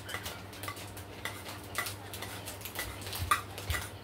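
Cutlery clinking against a dish during eating: a string of irregular light clicks, some with a short ring, the loudest a little past three seconds in.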